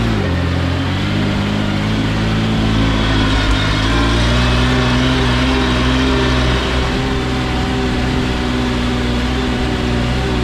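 Mercedes Unimog engine pulling steadily in second gear off-road. The pitch swings up and back down right at the start, then holds steady and rises a little about four seconds in.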